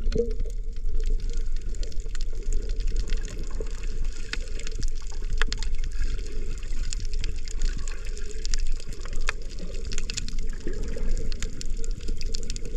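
Underwater sound heard through an action camera's waterproof housing: a steady, muffled low rumble of water with scattered sharp clicks throughout.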